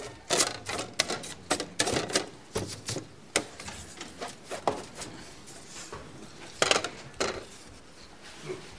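Rummaging in a wicker chest: a quick clatter of knocks and rattles as things inside are moved about, thinning to scattered knocks, with two louder knocks about two-thirds of the way through.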